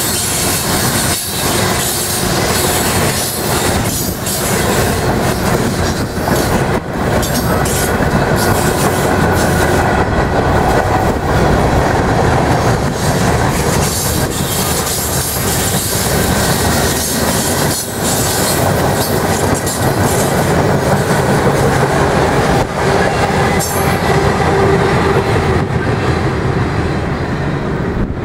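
Norfolk Southern manifest freight train's hopper cars and boxcars rolling past at close range: a steady, loud rumble of steel wheels on rail, with sharp clicks as wheels cross rail joints. Near the end the high end of the sound falls away as the last cars draw off.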